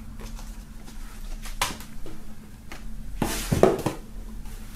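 Hands handling merchandise on a tabletop: a cotton T-shirt, cardboard packaging and plastic CD cases being moved and shuffled, giving rustles and light knocks, loudest about three seconds in.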